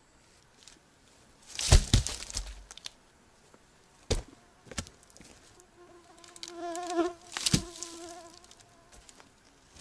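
Crackles and knocks of a person moving over bark and twig litter, loudest about two seconds in, with single knocks after. About six seconds in, a flying insect buzzes close by for about two seconds, its pitch wavering.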